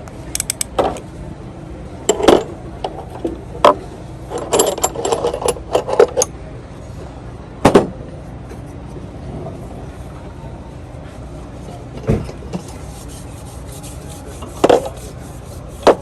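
Hand tools and other hard items clattering and clacking as they are picked up and set down. There is a burst of rattling about four to six seconds in and single sharp knocks later, over a steady outdoor background noise.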